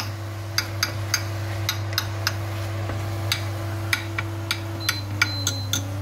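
Induction hob humming steadily under a stainless pan of frying ground beef, onions and tomatoes, with irregular sharp pops and ticks from the pan a couple of times a second. About five seconds in, two short beeps as the hob's heat setting is changed, and the hum's pitch shifts briefly.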